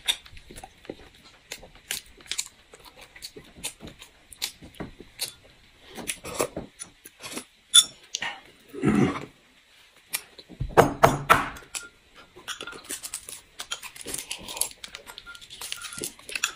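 Close-up eating sounds: wet chewing and lip smacking with many sharp clicks and light taps of bowls and utensils. There are two short hums or murmurs, about nine and eleven seconds in.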